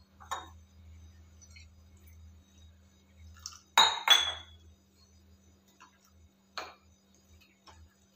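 Utensils clinking against a mixing vessel while semolina batter is being thinned with water: a light tap near the start, two loud sharp clinks close together about four seconds in, then a few fainter taps.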